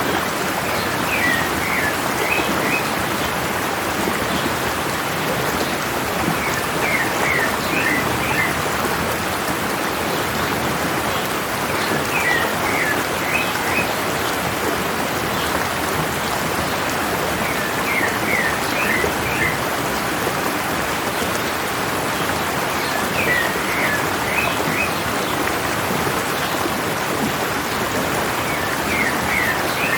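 Stream water rushing steadily over rocks, with a bird repeating a short phrase of about five quick, high chirps every five or six seconds.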